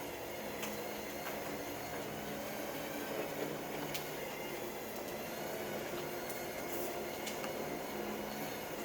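Steady hum of a small electric drive motor moving along the trail, with a few faint ticks.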